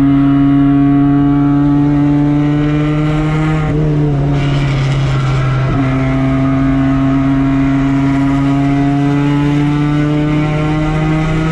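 Mazda Miata race car's four-cylinder engine running hard under load on track. Its note holds nearly steady, is broken twice, about four and six seconds in, then climbs slowly.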